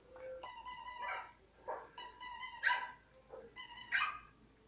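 Small tan short-haired dog barking in reply to recorded dog barks from a video, in about four bouts roughly every second and a half, each a quick run of sharp barks.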